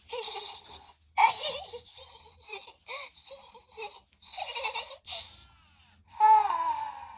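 Little Live Pets Cozy Dozys Cubbles the Bear plush toy making its baby-bear voice sounds: a run of short giggles and babbling coos, then a longer call falling in pitch about six seconds in.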